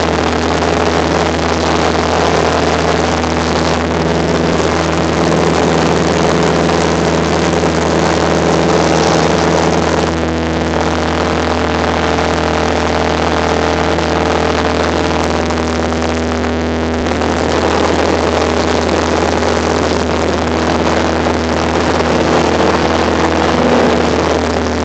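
Cessna 172's piston engine and propeller droning steadily at takeoff power through the takeoff roll and climb-out, heard from inside the cabin.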